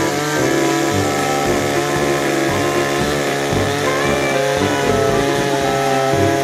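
Promo PSG 45-15 petrol chainsaw with its two-stroke engine running at high revs while cutting through a log, a steady continuous sound, with background music mixed in.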